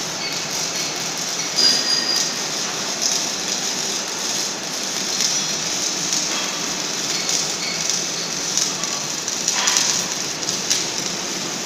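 Steady workshop machinery noise with scattered short metallic clinks and knocks.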